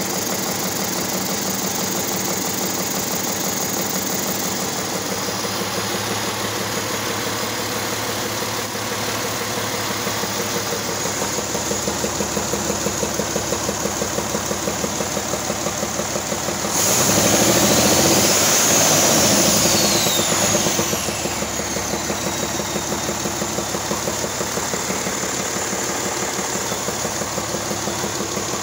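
Caterpillar 3306DI turbocharged 10.5-litre six-cylinder diesel engine idling steadily. About 17 seconds in it is revved briefly: it gets louder and a high whine climbs and then falls away over about four seconds, then it settles back to idle.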